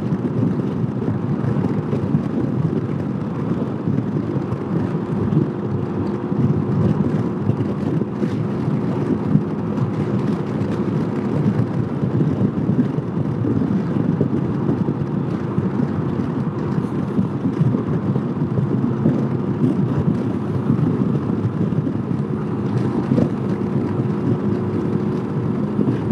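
2015 Honda PCX150 scooter's single-cylinder four-stroke engine running steadily at cruising speed, with a low, even drone mixed with wind and road noise.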